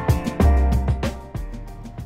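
Background music with a drum beat and a low bass line.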